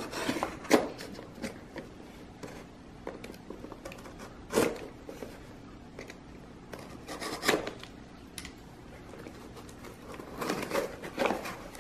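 Utility knife slitting the packing tape along the seams of a small cardboard shipping box: quiet scraping and cutting broken by a few sharp knocks and taps of the cardboard, with a flurry of cardboard handling near the end as a flap is pulled open.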